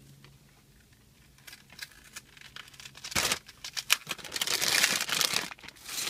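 Paper wrapper of a chocolate bar being opened by hand and the foil inside crinkling. There are a few small ticks at first, one sharp rustle about three seconds in, then a couple of seconds of dense crinkling.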